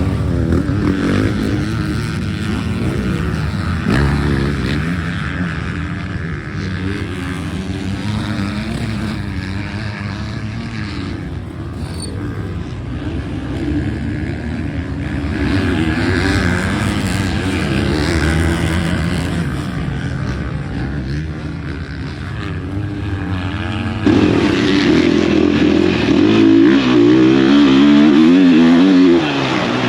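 Motocross dirt bike engine revving up and down while riding the track, its pitch rising and falling with the throttle. The sound changes abruptly and gets louder about 24 seconds in.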